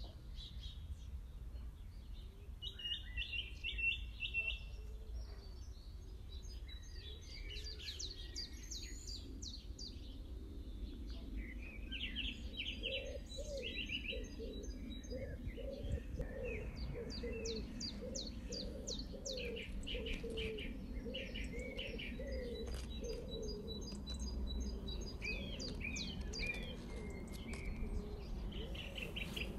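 Small songbirds chirping and trilling in a garden, with a lower call repeated about twice a second for several seconds in the middle, over a steady low background rumble.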